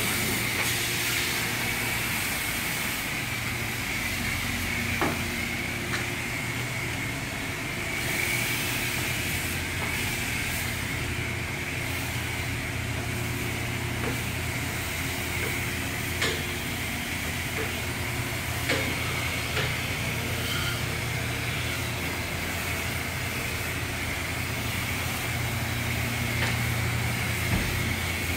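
Self-serve car wash high-pressure spray wand hissing steadily as its water jet hits a car's bumper and side panels, over a steady low hum, with a few faint ticks.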